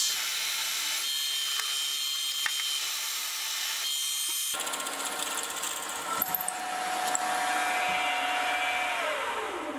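Benchtop milling machine drilling a hole into a mild steel block, a steady whir of spindle motor and cutting. The sound changes abruptly about four and a half seconds in. Near the end the motor tone falls in pitch and fades as the spindle slows down.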